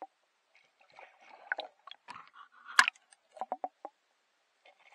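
Water swishing and clicking around a camera held underwater, with a sharp knock about three seconds in and a quick run of about five clicks just after.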